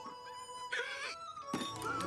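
Background film-score music: held notes with short swelling bursts about three quarters of a second in and again near the end.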